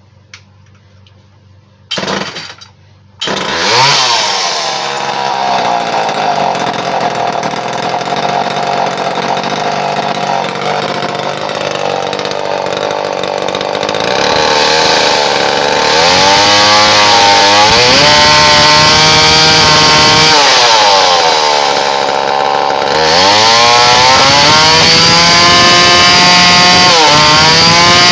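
Homelite EZ Automatic two-stroke chainsaw starting: a short burst about two seconds in, then it catches about a second later and runs at a lower speed. It is then revved up and held at high speed, drops back briefly near the end and is revved up again. It is running on fresh fuel with a just-adjusted carburettor, which the owner thinks could use a little more fine tuning.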